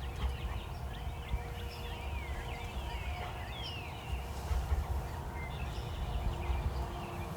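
Songbirds chirping, many short falling calls, over a steady low rumble.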